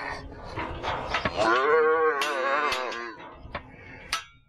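A calf bawls once, a long call of about two seconds that rises and then falls in pitch, with a few sharp knocks around it.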